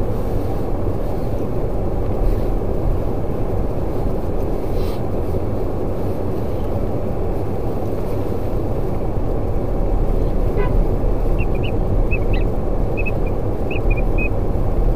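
Steady rumble of a car driving slowly on an unpaved dirt road, with engine and tyre noise heard from inside the cabin. A few short, high chirps come in over it in the last few seconds.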